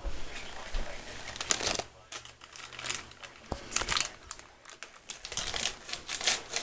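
Irregular rustling and crinkling noises in short clusters, with a quiet voice now and then.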